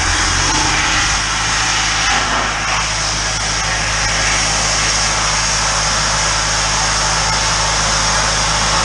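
High-pressure drain jetter running steadily: a constant engine hum under the hiss of water spraying from the jetting nozzle.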